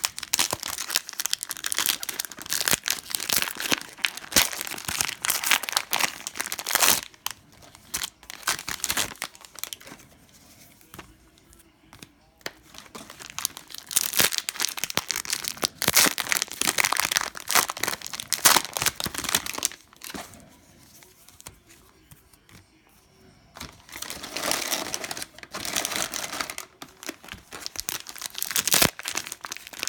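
Cellophane wrappers of Panini Prizm basketball card cello packs crinkling and tearing as they are opened by hand, in three long stretches with quieter pauses between.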